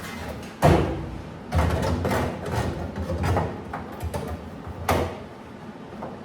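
Sheet-metal knocks and clanks: one loud hit less than a second in, a run of clattering knocks over the next two seconds, and another hit near the end.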